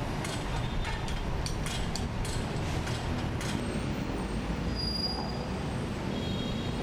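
Steady low rumble of airport ambience: engine and vehicle noise, with a few faint clicks in the first few seconds.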